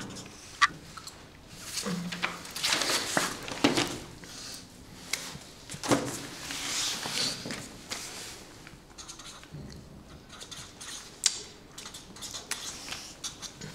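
Scattered rustling and small clicks and knocks of objects being handled at a desk, with a couple of longer rustling stretches in the first half.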